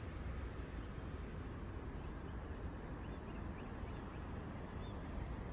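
Wind buffeting the microphone: an uneven low rumble over a steady outdoor hiss, with a few faint, short high chirps.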